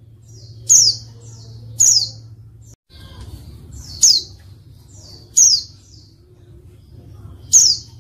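Female white-eye (pleci) calling: five short, sharp call notes that fall in pitch, spread over about eight seconds, with softer twitters in between. These are the calls used as a lure to get male pleci to answer and sing. A low steady hum runs underneath.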